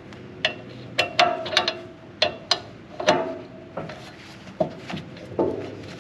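A 1/2 inch wrench clinking and knocking against a bolt head and the steel mower-deck parts as the loose drive-shaft bolt is turned out. About a dozen sharp metallic clicks come at an uneven pace.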